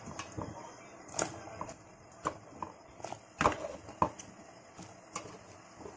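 Chunks of raw jackfruit dropped one by one into an aluminium pot of water, making about a dozen irregular plops and splashes.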